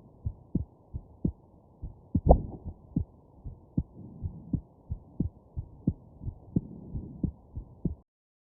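Human heartbeat, a steady lub-dub of paired thumps at about one and a half beats a second. About two seconds in comes one louder, fuller jolt, a hiccup. The sound cuts off suddenly near the end.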